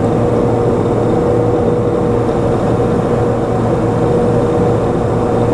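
Steady drone of a Pilatus PC-12's single Pratt & Whitney PT6A turboprop engine and four-blade propeller in flight, heard inside the cockpit, with a constant high whine over the low hum.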